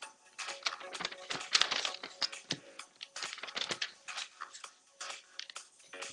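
A sheet of paper being folded and creased by hand: a run of irregular crinkles and rustles.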